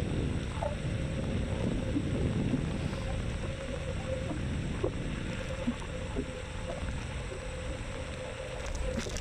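Riding a Xiaomi M365 electric scooter: steady wind and road rumble on the microphone, with a faint steady whine and a few light rattles.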